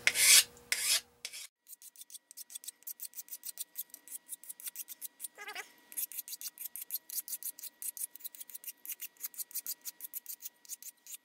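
Hand file chamfering the sharp corner of a small metal plate held in the hand, in quick short rasping strokes, several a second, with the first strokes loudest. A brief squeak sounds about five and a half seconds in.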